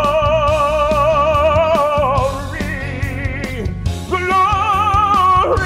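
Male tenor singing long held notes with a wide vibrato, over instrumental accompaniment. One note is held to about two seconds in, and after a short break a second, higher-sounding held note comes near the end.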